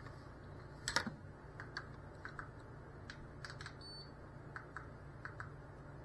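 Scattered light clicks and taps, with a sharper one about a second in, over a steady low hum.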